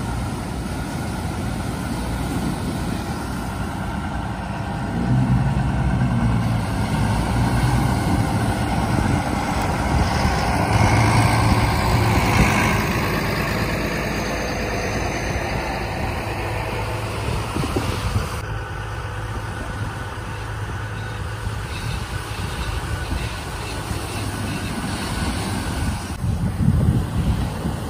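Twin outboard motors of a ski boat running as it heads out through breaking surf, a steady engine hum under the noise of the waves and wind, swelling for several seconds midway.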